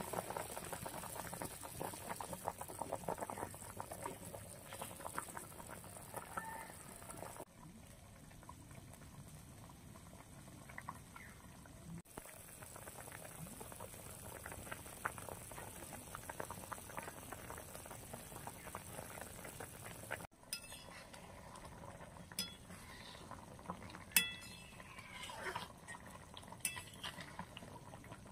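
Fish curry with pointed gourd bubbling at a rolling boil in a wok, a dense crackle of bursting bubbles. In the last third, a spatula stirs the curry and clinks against the metal wok several times, one clink much louder than the rest.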